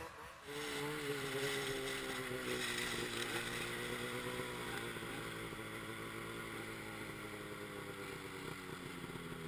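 Snowmobile engine running at low revs, a steady drone whose pitch sinks slowly.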